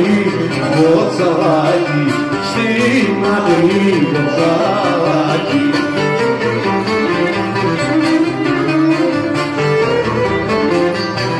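Greek lyra bowed in a lively folk melody over a strummed lute accompaniment, played live.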